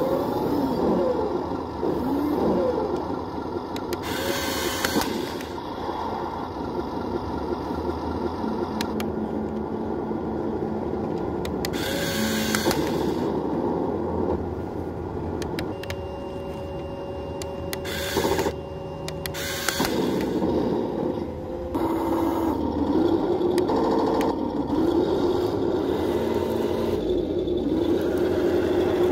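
Heng Long 1/16 radio-control KV-1E tank running: a steady mechanical motor sound with small electric motors whirring as the turret traverses and the hull drives, broken by several short bursts of clatter about a second long.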